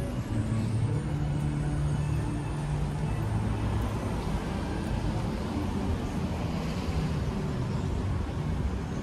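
City street traffic: cars and other vehicles running past in a steady din, with a low engine hum that is strongest in the first few seconds.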